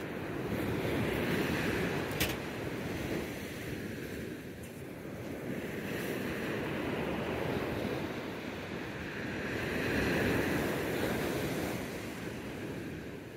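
Ocean surf breaking and washing up the beach, swelling and easing every few seconds, with wind on the microphone. A single sharp click about two seconds in.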